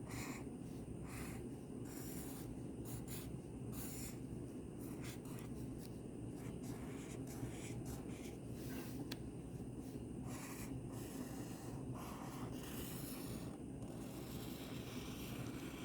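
A pen scratching on paper in short, irregular strokes as the lines of a drawing are traced over to outline it, over a steady low hum.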